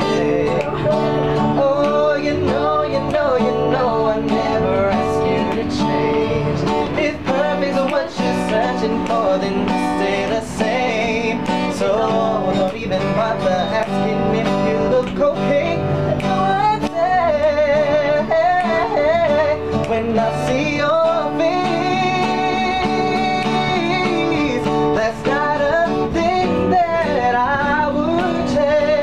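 A man singing a pop love song over an acoustic guitar.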